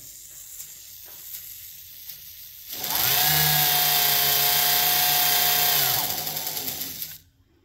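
A 1x30 knife-sharpening belt grinder's variable-speed electric motor starts about three seconds in and spins up to a steady whine at its top speed of about 4500 RPM. It runs for about three seconds, then winds down with a falling pitch and stops shortly before the end.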